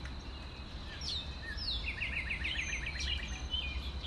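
Several songbirds chirping, with a quick trill of about a dozen short repeated notes about two seconds in, over a steady low rumble.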